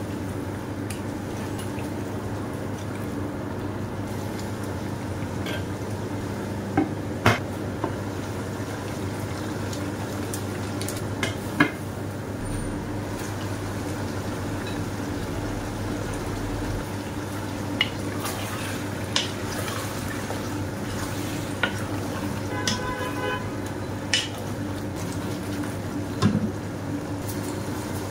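A wooden spoon stirring pork stew simmering in a pot, with scattered sharp knocks of the spoon against the pot, over a steady low hum.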